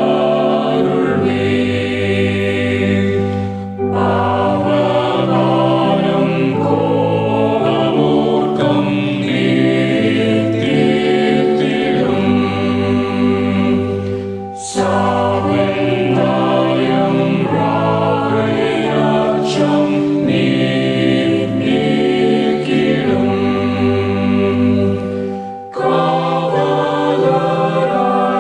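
Men and women singing a Tamil Christian hymn together, a virtual choir of separately recorded voices mixed over a karaoke backing track. The singing runs on in long phrases, with a brief break between lines about 4, 15 and 26 seconds in.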